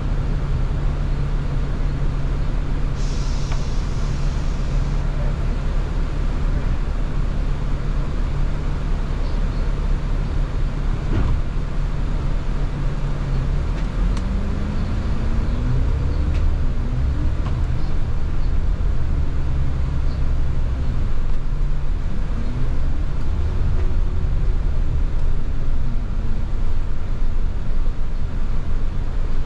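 Double-decker diesel bus heard from inside on its upper deck: the engine runs steadily, with a short air hiss about three seconds in. From about halfway the bus pulls away and the engine and drivetrain pitch climbs several times as it accelerates.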